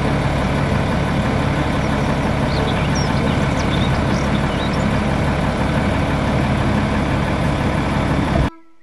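Diesel engine of a five-axle Volvo tipper truck running steadily with its tipping body raised. The sound cuts off abruptly near the end.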